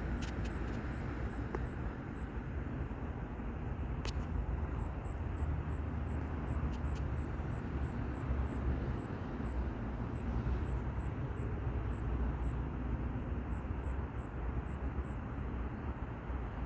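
Steady low outdoor rumble, with a faint high ticking about three times a second and a few scattered clicks; the warning siren is not sounding.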